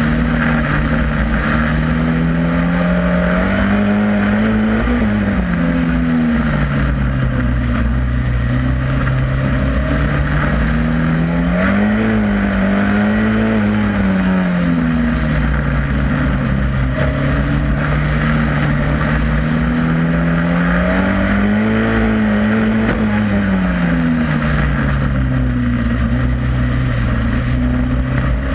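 Superstox stock car's engine heard from on board at racing speed, its pitch climbing and falling three times as it accelerates and lifts off around the oval, over a steady rushing noise.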